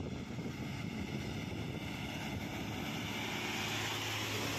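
Heavy diesel tipper truck approaching and passing close by. The engine's low steady note and the tyre and road noise grow louder toward the end as it draws level.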